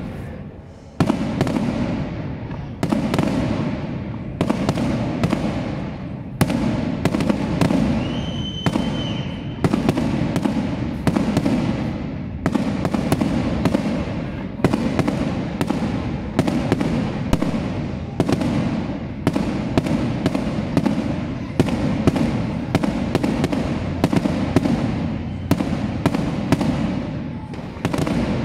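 Aerial firework shells bursting in quick succession, a bang about every second or so, each trailing off into a rolling rumble with crackling in between.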